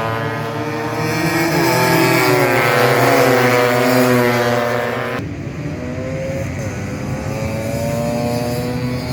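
Tuned 180cc Vespa scooter engines racing, several at once, their pitch rising and falling as they accelerate and shift. About five seconds in the sound changes abruptly, leaving a single engine tone that rises and dips.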